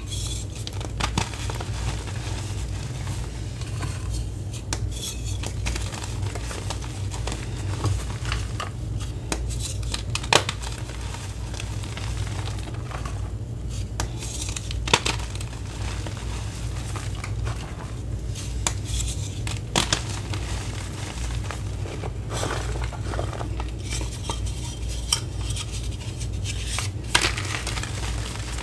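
Reformed gym chalk blocks, made of gym chalk, cornstarch, acetone and citric acid, snapped in half and crushed between the fingers: crisp crunching and crumbling, with sharp clean snaps as the blocks break, loudest about 10, 15, 20 and 27 seconds in.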